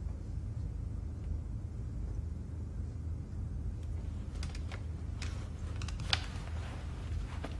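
Steady low rumble of room tone. From about halfway through come small scattered clicks and rustles of handling and clothing, with one sharper click near the end.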